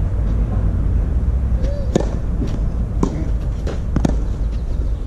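Tennis ball struck by rackets during a rally on a clay court: sharp hits about two and four seconds in, with a bounce about three seconds in, over a steady low rumble.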